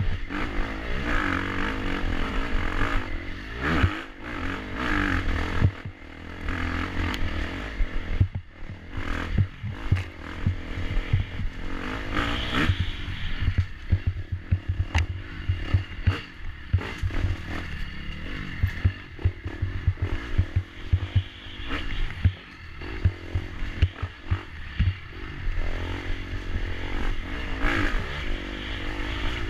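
Dirt bike engine heard from on board, revving up and dropping off the throttle again and again as it is ridden hard over rough ground, with frequent knocks, scrapes and rattles from the bike striking bumps and roots, over a heavy low rumble.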